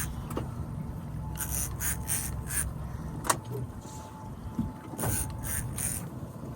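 Fishing reel being cranked in spells while a hooked fish is fought, giving quick runs of ticks, with one sharp click about three seconds in, over a steady low rumble from the boat.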